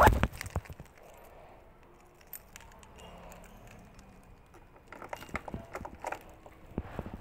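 Footsteps on concrete and handling of a phone: scattered small clicks and scuffs, quiet in the middle, with a cluster of clicks about five seconds in.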